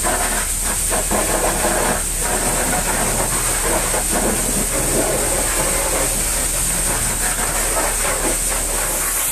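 Steady hiss with a low hum under it, as from a pressure washer running, with a long-handled brush scrubbing soapy foam on a truck's tyre and mudguard.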